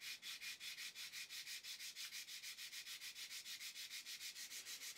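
Carbon fibre nut blank rubbed by hand across a sheet of sandpaper, shaping it for gluing: a dry scratching in quick, even strokes, about eight a second.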